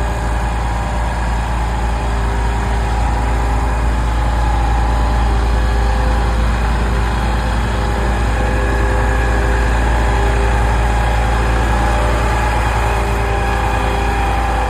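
Zoomlion 47 m truck-mounted concrete pump running steadily, its diesel engine rumbling deep with a steady whine on top, while it pumps water in a test run.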